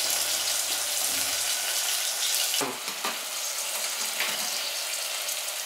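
Onion, tomato, chillies and cauliflower sizzling in hot oil in an open aluminium pressure cooker, a steady frying hiss. A few brief knocks a little under three seconds in and again just past four seconds.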